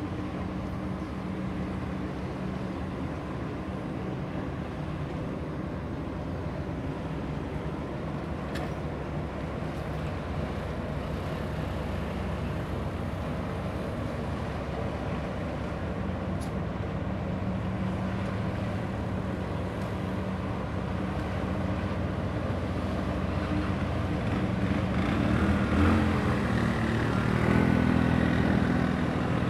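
Steady low engine drone and hum from a 149 m chemical tanker passing close by. It grows louder near the end as the stern, where the engine room is, comes past, and the engine tones waver.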